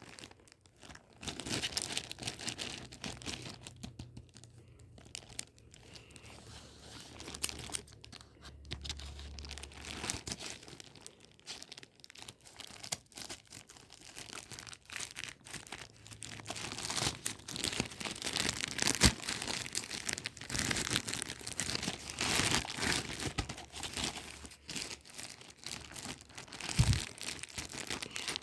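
Packaging of a Pokémon card binder crinkling, rustling and tearing as it is unwrapped by hand, with irregular crackles and a couple of sharper knocks.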